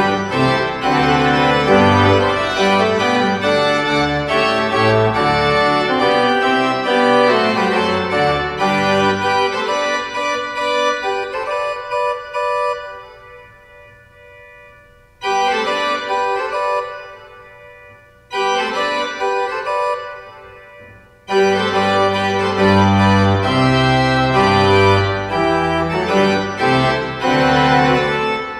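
Noehren pipe organ playing loud sustained chords over deep pedal bass notes. It thins to a soft, quiet passage with short phrases in the middle, and full, loud chords with pedal return a little past two-thirds of the way through.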